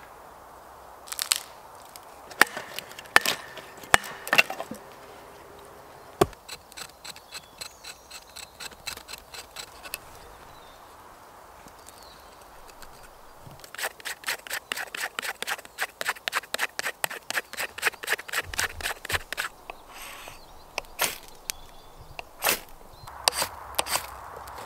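A few loud, sharp wooden cracks at first, then a knife blade scraping and shaving birch bark into tinder in fast, repeated scratchy strokes. Near the end come a few separate rasping strikes of a ferro rod against the knife's spine, showering sparks onto the bark until it catches.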